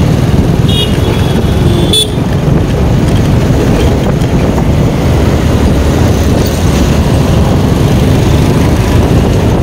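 Steady wind rumble and engine noise of a motorcycle riding in traffic, with a short vehicle horn toot about a second in.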